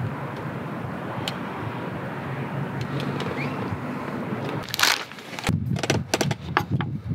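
Steady low outdoor rumble. From about five and a half seconds in, a kitchen knife cuts chikuwa on a wooden cutting board: a run of short, sharp taps.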